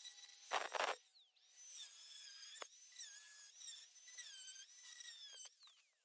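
High-speed power cutting tool whining as it cuts off old boot hinge mounts on car bodywork, its pitch dipping and recovering repeatedly under load. A short loud burst of noise comes about half a second in.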